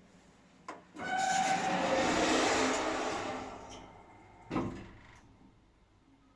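2024 Siblift passenger lift's mechanism: a click, then a few seconds of loud rushing noise with a faint squeal in it that fades, and a sharp thud about four and a half seconds in. The squeak is a fault that appears while the lift is moving.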